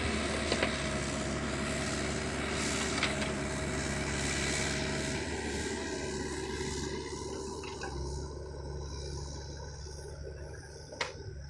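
Kubota U50 mini excavator's diesel engine running steadily, easing off somewhat in the second half, with a few short sharp knocks, the loudest near the end.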